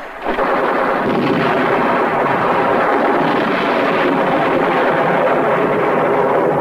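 War-film battle sound effects: dense, continuous gunfire and explosions, loud and unbroken.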